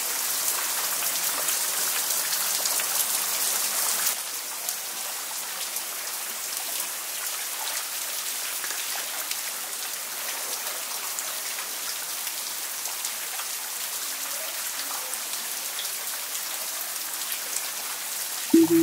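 Water dripping heavily from hanging tree roots and a wet, fern-covered canyon wall onto a pebbly floor: a dense, steady patter that sounds like it's raining. It drops a little in level about four seconds in.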